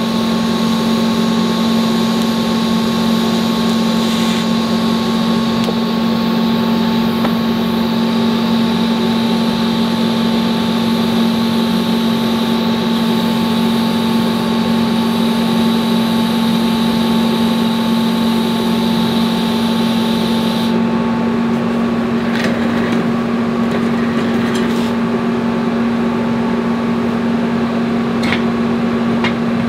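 TIG welding on steel: a steady electrical hum from the welder with the hiss of the arc over it. About two-thirds of the way through the arc hiss stops, leaving the hum and a few light clicks.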